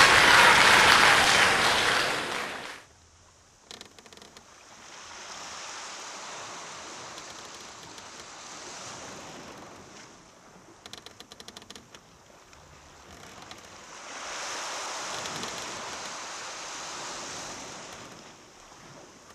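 Audience applauding, cut off abruptly about three seconds in; then a faint hiss that swells and fades twice, with a few short runs of rapid clicking.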